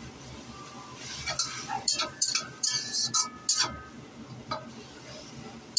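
A cooking utensil scraping and clinking against a wok while stir-frying enoki mushrooms, a quick run of strokes between about one and four seconds in, then a few single taps.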